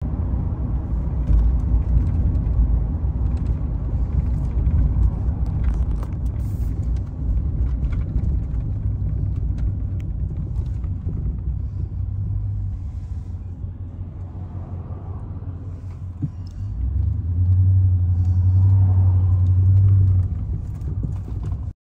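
Low engine and road rumble heard inside a moving car's cabin. It eases as the car slows, then a steady low hum holds for a few seconds near the end.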